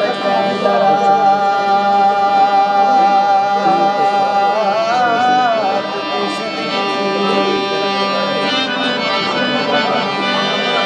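A hand-pumped harmonium plays sustained chords while a man sings a long held note in South Asian folk style. About four and a half seconds in, the note bends and wavers into an ornament.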